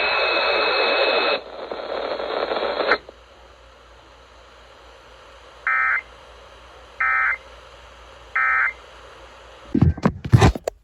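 Radio hiss for about three seconds, then three short identical warbling data bursts about 1.3 seconds apart: the EAS end-of-message (NNNN) tones that close the tornado warning broadcast. A few loud clicks near the end.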